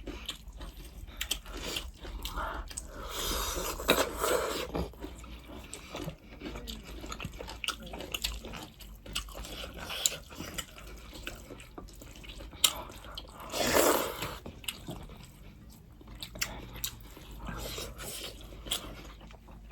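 Close-up eating sounds: goat soup slurped in short bursts, the loudest about four seconds in and again near fourteen seconds, among chewing and many small clicks.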